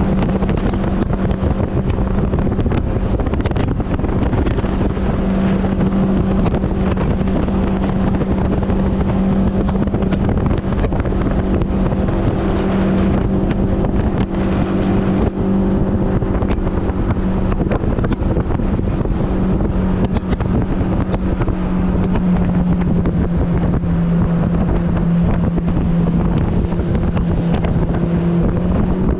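Mercury 80 jet outboard running steadily under way, with wind buffeting the microphone. Its pitch sags slightly about two-thirds of the way through and rises again near the end.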